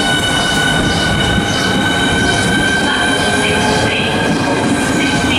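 Southeastern Class 395 high-speed electric train running past along the platform at close range: a steady high whine from its electric traction equipment, in several held tones, over the continuous rumble of its wheels on the rails.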